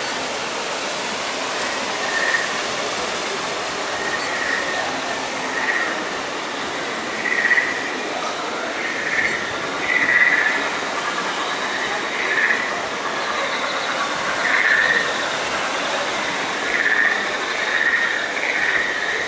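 Steady rush of flowing water from a small waterfall and stream, with short high chirps recurring every second or two over it.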